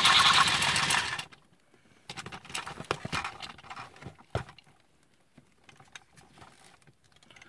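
Electronic blaster sound effect from a Big Blastin' Rocket Raccoon light-and-sound figure's small speaker, lasting about a second. It is followed by plastic clicks and rattles as the figure is handled, with one sharp knock about four seconds in.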